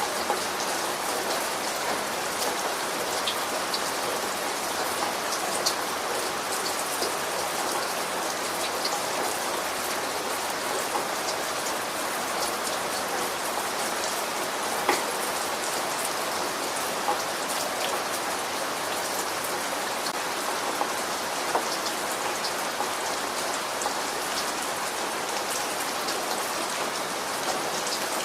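Steady rain falling on a surface, an even hiss with individual drops ticking through it.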